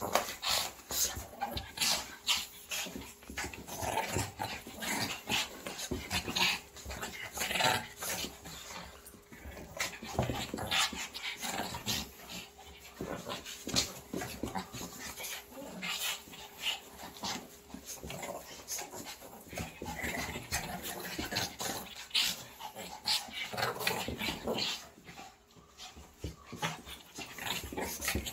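Two Shih Tzus play-fighting, growling and whimpering at each other in irregular short bursts, over the scuffle of paws and bodies on a padded blanket.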